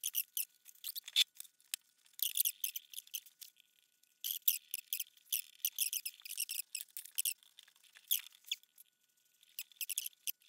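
Plastic V-slot wheels of an Ender 3 Pro's X-axis gantry squeaking against the aluminium Z-axis rails as the gantry is slid along them, in runs of quick high chirps with short pauses between. The squeal comes from the wheels binding on the rails.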